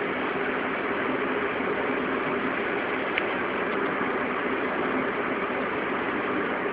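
Car in motion with a steady rushing noise and a faint low hum held underneath: the abnormal noise from a wheel hub. A single light tick about three seconds in.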